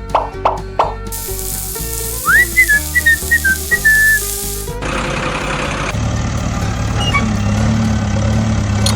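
Background music with plucked notes, then a short whistled tune over a steady hiss. About six seconds in, a steady low motor hum sets in.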